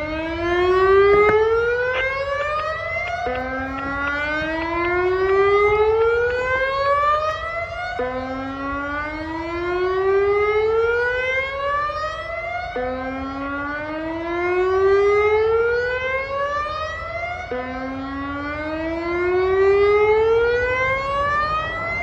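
Federal Signal Modulator 6024 electronic siren sounding its Alert warning tone: a pitch that climbs steadily for about five seconds, drops back abruptly and climbs again, about five times. The overall loudness swells and fades as it goes.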